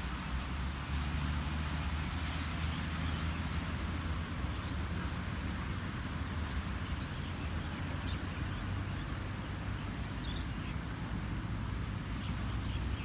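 Steady outdoor ambience with a low rumble, and a few faint, short high chirps scattered through it.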